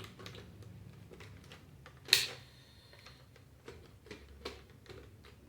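Scattered small plastic clicks and taps from a Dyson cordless vacuum's housing being worked loose by hand, with one sharper click about two seconds in.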